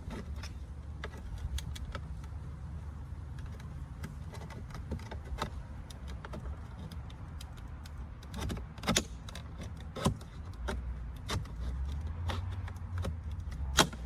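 Plastic clicks, scrapes and snaps of a Ford F-150 door trim panel being pried loose from its retaining clips, the sharpest snaps about nine seconds in and just before the end. A steady low hum runs underneath.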